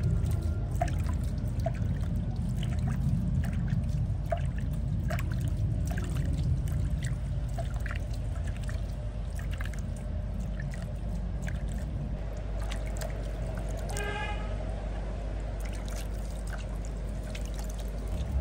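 Water trickling and splashing in small drips as a newborn baby monkey is washed by hand, over a steady low rumble. A short pitched tone sounds once, about three quarters of the way through.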